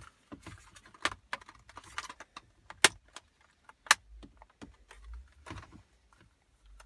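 Scattered sharp clicks and knocks of a hard plastic dashboard trim panel being handled and fitted onto its T-clip posts. The two loudest clicks come about three and four seconds in.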